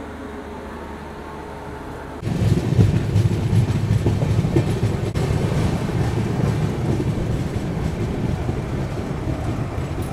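Passenger train running, heard from beside its open coach door: a loud rumble with wheel clatter that sets in suddenly about two seconds in, after a quieter steady hum.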